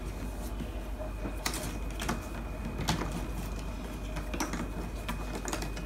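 Cardboard jigsaw puzzle pieces being slid and turned over on a tabletop by hand: scattered light clicks and taps.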